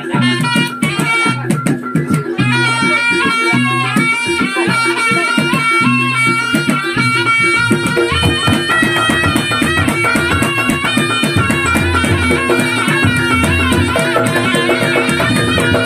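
Reog accompaniment music: a reedy slompret shawm plays a wavering melody over kendang drums and percussion, the drum pattern shifting about halfway through.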